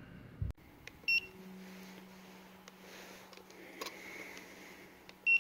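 Two short high electronic beeps from a Lyman trigger pull gauge, about four seconds apart, with a low thump just before the first and a few faint clicks between.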